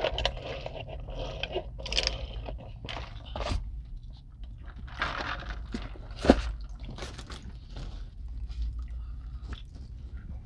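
Close-miked eating sounds: people biting into and chewing fish sandwiches, with irregular crunches, wet mouth sounds and slurps through drink straws.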